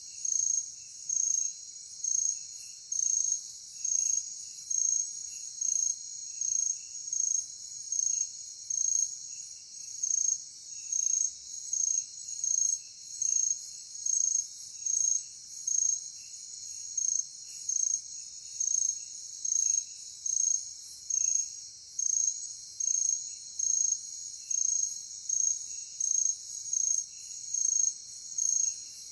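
Crickets trilling in a steady high chorus, with one loud chirp repeating evenly about one and a half times a second.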